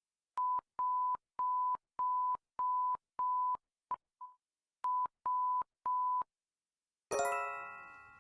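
Emergency alert signal: a pure electronic beep tone at about 1 kHz sounded in a run of about a dozen pulses, most of even length with a couple of brief blips in the middle. About seven seconds in, a bright many-note electronic chime rings out and fades.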